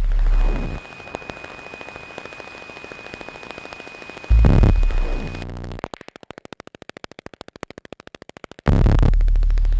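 Synthetic electronic music: a single high pure tone held for about five seconds over faint crackling noise, framed by heavy low bass bursts. In the quieter stretch after it comes a rapid buzzing train of clicks, and a loud low bass drone comes back near the end.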